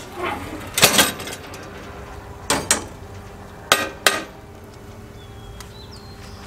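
Sharp metal clanks from the steel firebox of an Oklahoma Joe offset smoker as its lid is handled and shut. They come in three pairs, about a second and a half apart, within the first four seconds.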